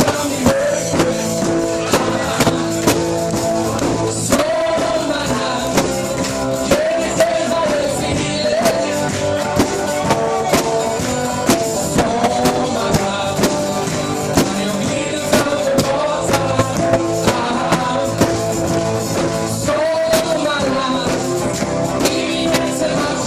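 Live unplugged band performance: a singer's lead vocal over acoustic band instruments, with a steady beat about twice a second.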